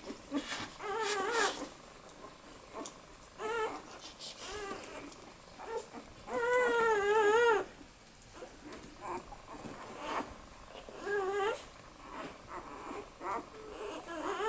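Newborn Australian Shepherd puppies whimpering and squealing in short wavering cries with small squeaks between, the longest and loudest cry about six seconds in, lasting over a second.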